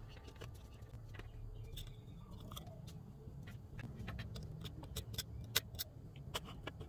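Small sharp metal clicks and taps of a precision screwdriver working on tiny screws in an iPhone's metal frame, scattered and more frequent in the second half, over a low steady rumble.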